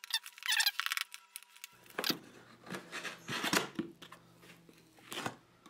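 Cardboard product box being opened by hand: an irregular run of scrapes, rubs and sharp clicks as the end flap is pried loose and lifted.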